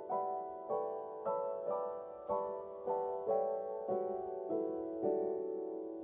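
Background music: a piano-like keyboard melody, a new note or chord struck about every half second and dying away.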